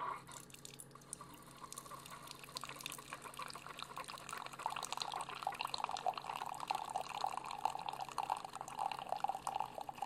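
Keurig B140 coffee brewer dispensing a thin stream of brewed coffee into a ceramic mug: a steady splashing trickle that grows louder as the cup fills, over a low steady hum.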